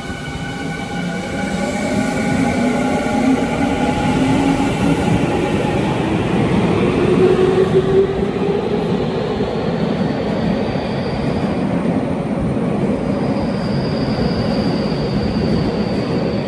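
Electric subway commuter train pulling out of the station and accelerating: its traction motors give a whine that rises in pitch over the running noise of the passing cars. A faint high-pitched squeal joins in the second half.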